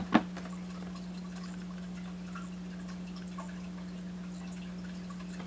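A steady low hum throughout, with a single short knock of a cardboard box being handled just after the start.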